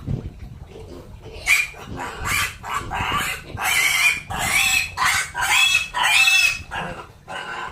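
A pig squealing: a rapid run of loud, shrill squeals starting about a second and a half in and breaking off near the end.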